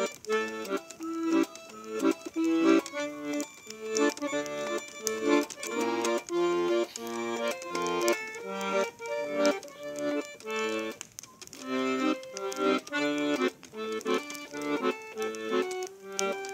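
Accordion playing an instrumental passage of a Yiddish folk song: a quick melody of held notes over a bass accompaniment.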